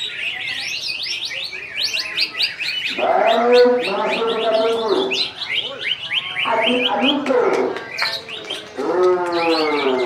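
Green leafbird (cucak ijo) singing a fast, continuous run of high chirps and twittering notes. Three stretches of lower, drawn-out voice-like calls come through underneath, about three, six and a half, and nine seconds in, the first of them the loudest.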